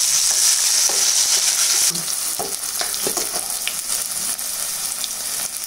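Sliced onions sizzling in hot oil in a pan, the hiss loudest for the first two seconds and then settling lower. A steel ladle makes short scraping clicks against the pan as they are stirred.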